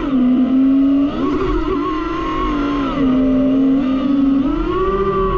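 DJI FPV drone's motors and propellers whining, the pitch swelling and easing several times as the throttle changes, highest about four to five seconds in.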